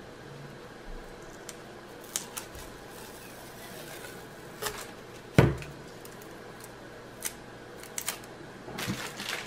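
Scattered small clicks and taps of hands handling a rolled diamond-painting canvas and picking at the tape that holds it closed on a wooden table, with one louder knock a little past halfway.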